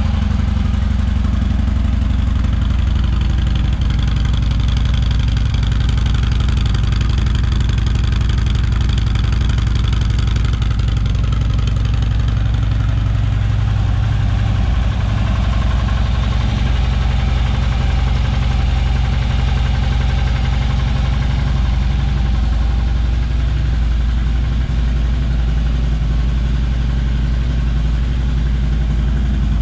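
2013 Harley-Davidson FLHTP's air-cooled V-twin engine idling steadily.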